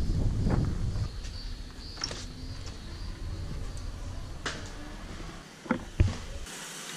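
Low wind rumble on the microphone in the first second, then scattered knocks and clicks of someone walking through a house with a handheld camera, footsteps on a timber floor. A sharp knock near the end is the loudest.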